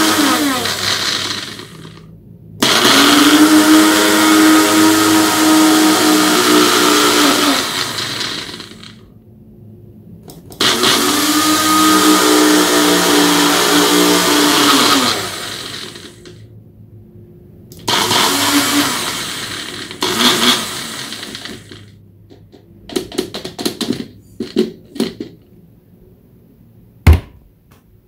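Personal bullet-style blender, its empty cup pressed onto the motor base, running in separate runs: two long runs of about five seconds and then two short pulses, each dropping in pitch as the motor winds down on release. Near the end come a few light clicks and one sharp knock as the cup is handled on the base.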